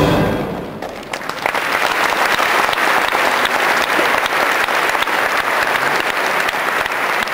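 The orchestra's last notes die away in the first second, then the audience applauds, many hands clapping steadily.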